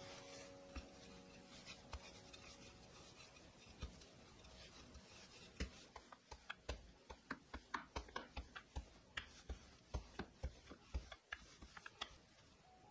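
Rolling pin rolling out laminated croissant dough on a wooden board, giving a run of irregular soft knocks, two or three a second, from about halfway through. Before that only faint rustling as hands smooth the folded dough, with an occasional tick.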